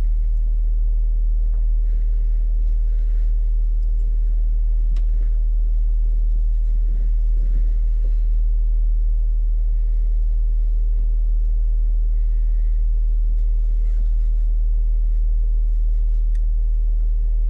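Jeep engine idling with a steady low hum and no change in pitch.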